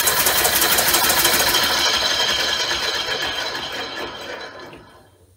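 Home-built oval-ring compressed-air engine running on two air cylinders: a fast clatter of clicks with hissing air, fading away over the last couple of seconds as the rotor coasts to a stop. It stops where, the builder says, the cylinders are not pushing it far enough.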